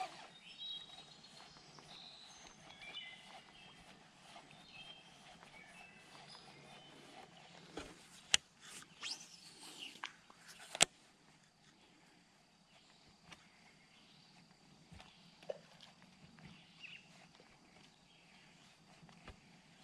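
Small birds chirping in the background. About eight seconds in comes a cast with a baitcasting reel: a sharp click, a whirring sweep as line runs off the spool, then a second sharp click about two and a half seconds later.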